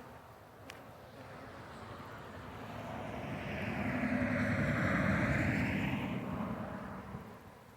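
An engine passing by: it swells to its loudest about five seconds in, then fades away.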